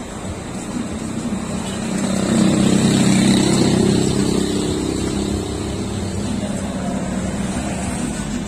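Engine of a motor vehicle running, growing louder about two seconds in and easing off after about four seconds, over steady background noise.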